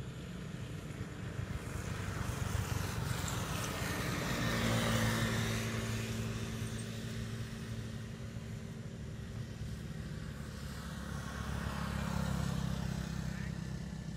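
Road vehicles passing on a nearby paved road, each going by with a rising and fading engine hum. The loudest pass-bys come about five seconds in and again about twelve seconds in.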